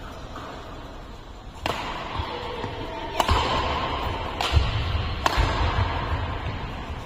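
Badminton rally: racket strings striking the shuttlecock four times, sharp cracks a second or so apart, with footfalls thudding on the court floor between the hits.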